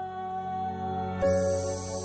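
Calm ambient background music: a held chord, joined about a second in by a new chord and a bright, hissing wash.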